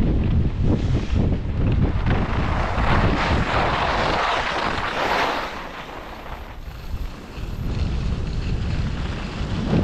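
Wind rushing over the microphone of a moving skier, with the hiss of skis sliding and scraping on packed snow, loudest about four seconds in. The wind rumble drops for a moment about six seconds in.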